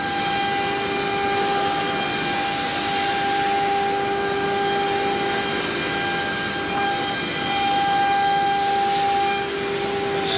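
Chencan CC-MS2030AC CNC router's spindle running with a steady high whine while the bit engraves a wooden board. The hiss of cutting swells and fades a couple of times, and the whine sags slightly in pitch near the end.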